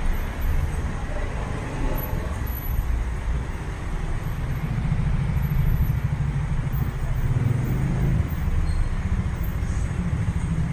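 Steady low rumble of city street traffic, with no distinct single vehicle, growing a little louder about halfway through.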